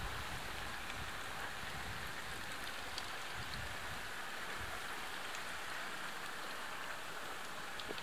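Steady outdoor hiss, even throughout, with a few faint ticks scattered through it.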